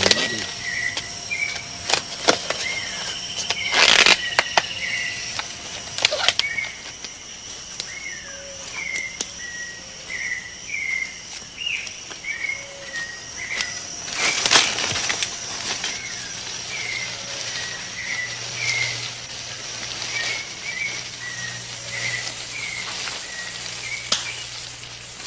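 Rainforest ambience: short chirping calls repeated over and over, about one a second, over a steady high-pitched insect buzz. A few loud brief rustling crackles stand out, the loudest about 4 and 14 seconds in.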